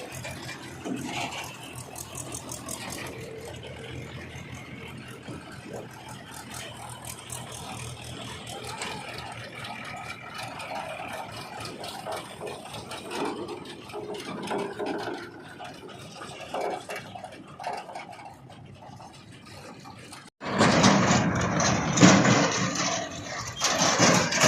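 Diesel engine of a backhoe loader or tractor running, with rattling from the machinery. Near the end it cuts abruptly to a louder stretch of engine noise.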